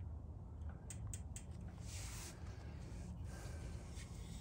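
A few light clicks about a second in and a brief scrape about two seconds in, from parts and tools being handled on a partly dismantled ATV engine, over a steady low hum.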